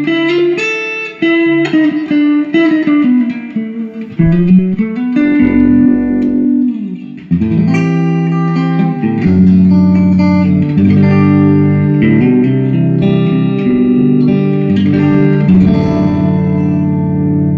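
Electric guitar played through a Fender Pro Reverb silverface tube amp, freshly recapped and fitted with new power tubes. Single-note lines with bent notes give way, about seven seconds in, to sustained chords.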